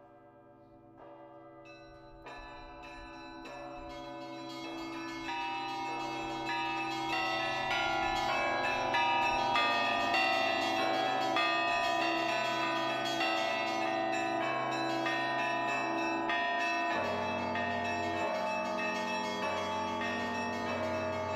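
Orthodox church bells ringing a rapid peal of many bells. It fades in and swells louder over the first several seconds, and a deeper low tone joins about 17 seconds in.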